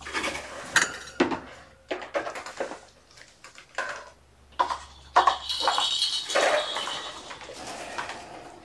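Wire pen fence banging and rattling as a kitten runs into it: a string of sharp metallic clinks and knocks, with a longer jangling rattle about five seconds in.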